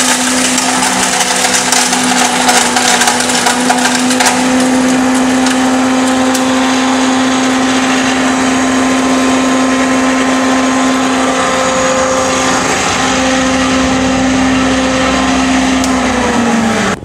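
Belt-driven rock salt grinding machine, driven by a 3 HP electric motor, running with a steady hum and whine while chunks of rock salt are crushed to powder. Dense crackling from the salt is heaviest in the first few seconds. The hum dips slightly in pitch just before it cuts off at the end.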